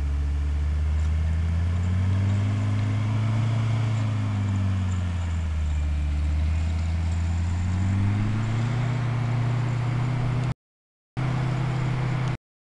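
Mercedes-Benz G-Class engine working the off-roader through muddy ruts, its pitch rising, falling back and rising again as the revs go up and down. The sound cuts out abruptly twice near the end.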